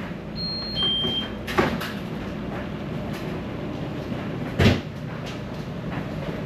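Laundry room with a steady machine hum. Near the start an appliance gives two short electronic beeps, the second lower. A knock follows, and a louder thud later, like a machine door or lid being shut.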